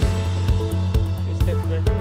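Background music with a steady beat, a drum hit about twice a second over a heavy bass line.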